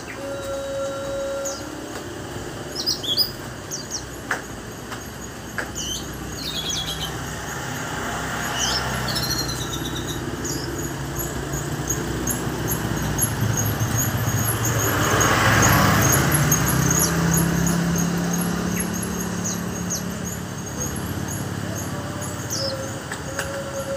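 Orange-headed thrush (anis merah) singing high chirping phrases and a long run of quick repeated notes. A motor vehicle passes by, growing louder to a peak about two-thirds of the way through and then fading.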